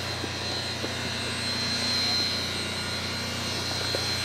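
Steam locomotive No. 464 standing at rest with steam hissing steadily from around its cylinders, over a constant low hum.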